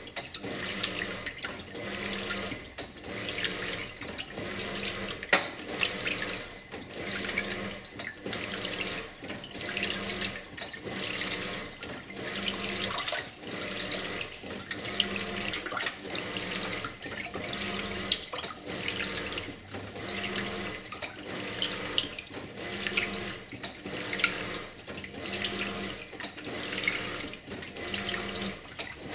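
Simpson Esprit 550 top-load washer agitating a full load of clothes, water sloshing in the tub with a rhythmic churn about once a second as the agitator swings back and forth.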